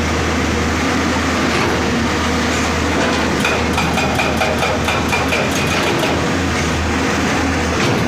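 Hydraulic excavator's diesel engine running steadily under load, with a fast metallic clatter of about six or seven knocks a second in stretches near the start and in the middle.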